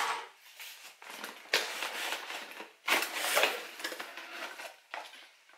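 Cardboard shipping box being handled and opened: a sharp knock at the start, then two longer stretches of crackling, scraping cardboard.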